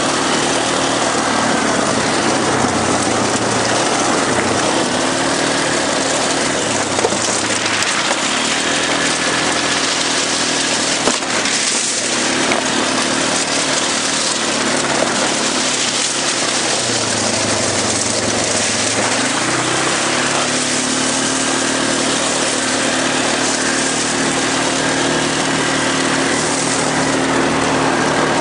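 ATV engine running while being ridden, its revs dipping and climbing again a few times, over a steady rushing noise.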